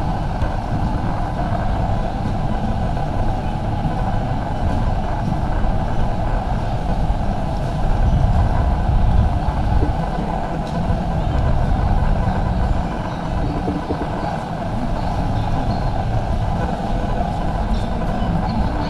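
Busy warehouse-store din: many shoppers' voices chattering indistinctly over a steady low rumble of shopping trolleys rolling on a concrete floor.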